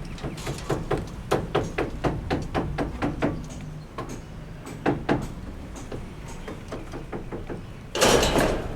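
A quick, uneven run of sharp knocks and taps for about three seconds, two more about five seconds in, then a loud rushing burst near the end.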